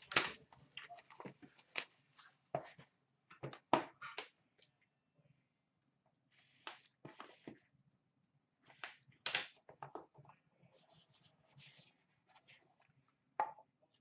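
Hands opening a cardboard trading-card box: scattered light clicks and taps of cardboard, with short stretches of rustling as the lid comes off and the inner box is slid out.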